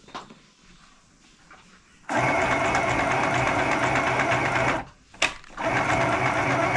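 Small electric sewing machine stitching in two runs: it starts about two seconds in, stops briefly with a single click, then runs again.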